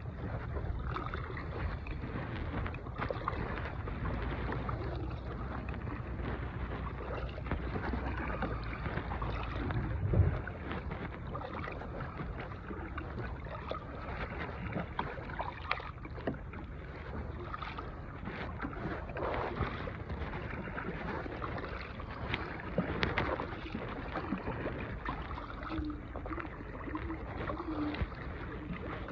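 A small fishing boat drifting on the water, with water lapping and knocking at the hull and wind on the microphone. There are scattered small knocks and one louder thump about ten seconds in.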